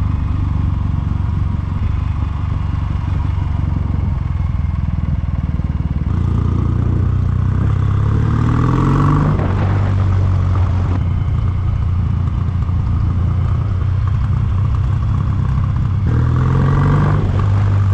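Kawasaki W800's air-cooled parallel-twin engine running steadily under way, rising in pitch as it accelerates about eight seconds in and again near the end, each rise falling back.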